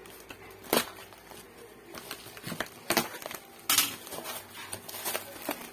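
Corrugated cardboard box being opened by hand, its flaps scraping and rubbing, with plastic bubble wrap crinkling inside. Irregular sharp rustles, the loudest about a second in and again around three to four seconds in.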